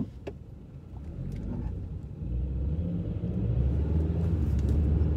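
Low rumble of a car heard from inside the cabin, swelling about two seconds in and then holding steady, with a couple of light clicks at the very start.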